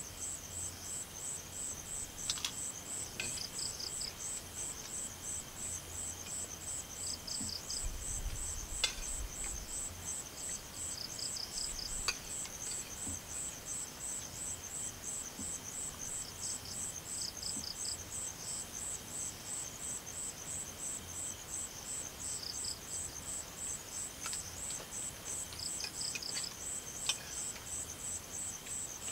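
Night insects calling: a steady, evenly pulsed high trill like crickets, with a second insect chirping in short bursts every few seconds. A few light clicks break in now and then, a spoon clinking on an enamel plate.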